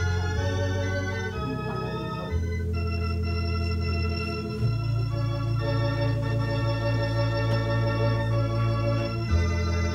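Organ playing a wedding processional: slow, sustained chords over long held bass notes, the harmony changing every second or two and the bass holding for several seconds at a time.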